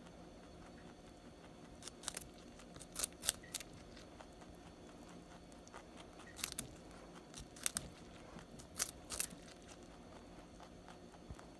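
A Holland Lop rabbit biting and chewing baby carrots: crisp crunches come in small clusters of two or three every few seconds, with quieter chewing between them.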